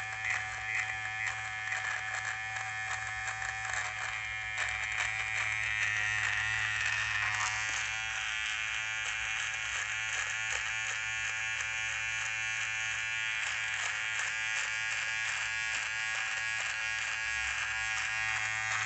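HTC rechargeable beard trimmer running with a steady buzz as its blades, set short with the adjustable comb, cut through beard stubble on the chin, with a fine crackle of hair being clipped.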